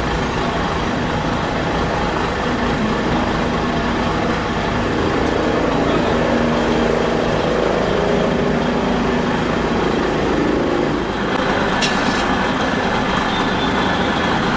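A heavy truck's engine running steadily close by.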